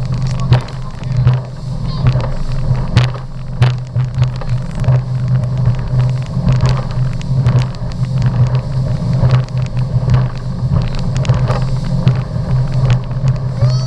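Motorboat running fast, its engine a steady low drone, with frequent short knocks and splashes over it.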